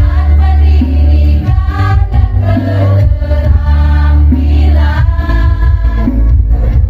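A choir singing a song over loud amplified accompaniment, with a deep bass note that changes every second or two.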